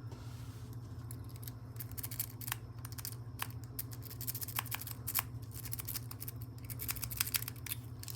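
Rake pick scraping back and forth over the pins of a Master Lock No. 3 laminated padlock held under a tension wrench: a fast, irregular run of small metallic clicks over a low steady hum.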